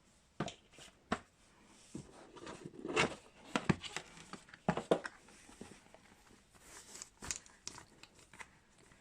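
Hands handling a leather planner cover and paper notebook: scattered light taps, clicks and brief rustles, irregularly spaced.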